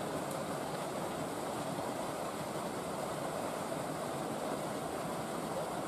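Steady rushing of water from an artificial waterfall pouring down a rock wall.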